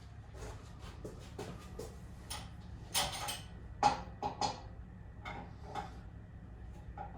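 Irregular knocks and clatter of things being handled, a dozen or so short hits, with the loudest cluster about three to four and a half seconds in.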